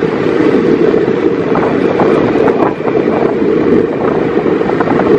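Wind rushing over the microphone of a moving vehicle, with its engine and road noise underneath: a loud, steady rumble.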